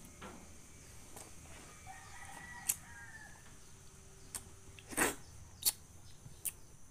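A rooster crows once in the background, about two seconds in. A person sucks and chews yellow passion fruit pulp, making a few sharp mouth clicks and smacks; the loudest comes about five seconds in.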